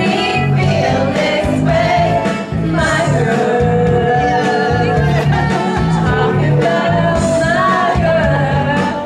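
Karaoke: a pop song played loud over a sound system, with a steady beat and voices singing the melody along with it.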